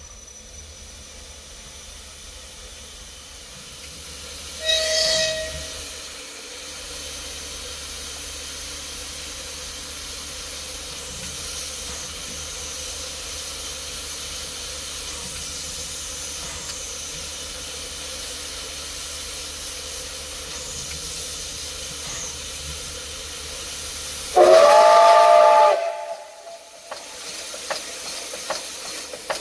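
Steam locomotive hissing steadily as it vents steam. A short, loud whistle blast comes about five seconds in. A longer, louder whistle blast of several tones sounding together comes about 25 seconds in.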